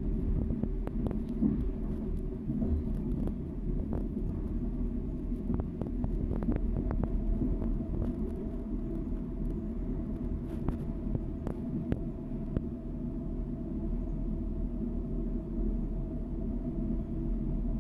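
ED4M electric multiple unit running along the line, heard from inside the carriage: a steady low rumble of wheels on the rails with a faint steady tone above it. Scattered light clicks come through the first two-thirds.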